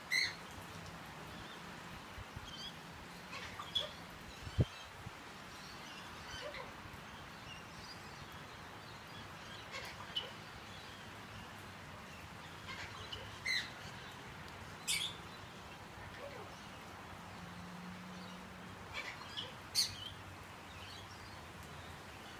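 Eclectus parrot giving short, sharp calls and chirps every few seconds over a steady background hiss, with a single sharp knock about a fifth of the way in.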